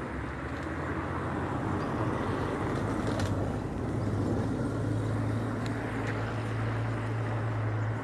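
A steady low motor hum over a dull rumbling noise. The hum grows louder in the second half and stops at the end.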